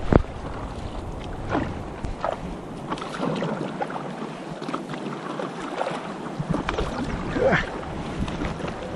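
River water sloshing and slapping against an inflatable stand-up paddleboard, with irregular splashes from the paddle dipping into choppy rapids. A short low rumble of wind on the microphone comes at the very start.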